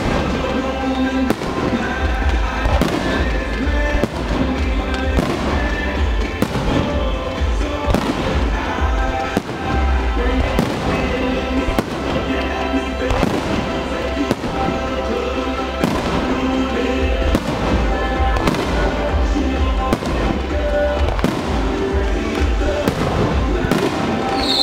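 Aerial fireworks going off in quick succession, with frequent sharp bangs and crackles and a heavy low rumble, over loud music played for a pyromusical show.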